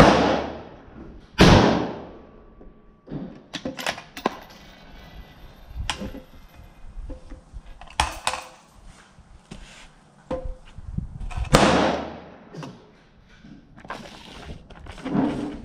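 Black Creek Labs Bison MRX .223 rifle fired twice, about a second and a half apart, each shot echoing under the range's roof. Metallic clicks and clatter of the rifle and magazines being handled follow, and another shot rings out about eleven and a half seconds in.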